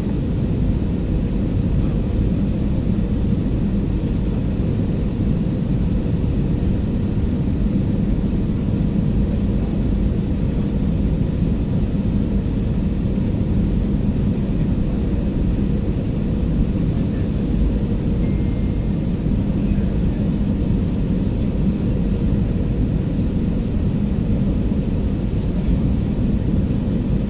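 Airbus A320-216 cabin noise during the descent to landing: the steady drone of its CFM56 engines and the rush of air over the fuselage, with a constant low hum underneath.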